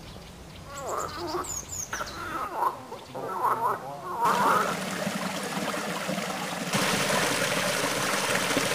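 Frogs calling in short repeated croaks at a pond, with a few high bird chirps among them. About halfway through, a small stream of water pouring into a pool takes over as a steady splashing rush, louder near the end.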